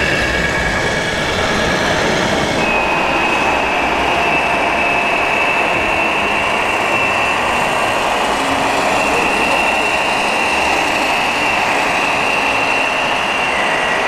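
Radio-controlled scale model trucks driving: a steady high-pitched whine from the electric drive and gears over a dense background noise. The whine jumps to a higher pitch about three seconds in.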